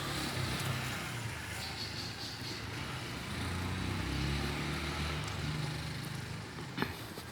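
A road vehicle's engine running as it passes on the street, a low rumble that swells in the middle and fades. A short knock near the end.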